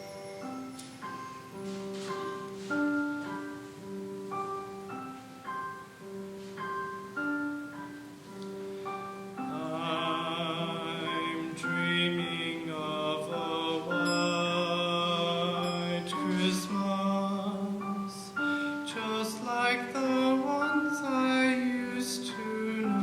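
High school choir performing with accompaniment: a slow opening of held notes, then the choir's voices come in about nine seconds in and the music grows fuller and louder.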